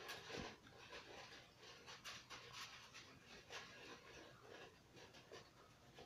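Faint, irregular chewing of a crispy breaded chicken nugget, soft crunches and mouth clicks close to the microphone.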